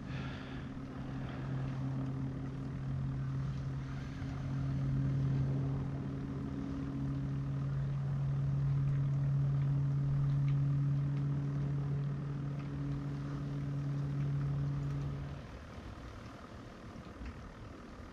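Motorboat engine running at a steady pitch, swelling and easing in loudness, then cutting off abruptly about fifteen seconds in.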